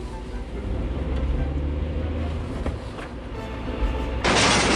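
Background music over a steady low vehicle-engine rumble, a race sound effect. About four seconds in, a loud burst of rushing noise cuts in and carries on to the end.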